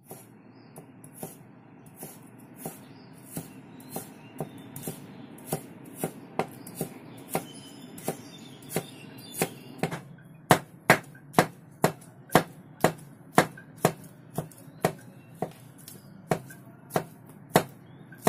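A steel Chinese cleaver chopping salted black olives (欖角) against a wooden cutting board, in a steady rhythm of sharp knocks about two a second. The knocks grow clearly louder about halfway through.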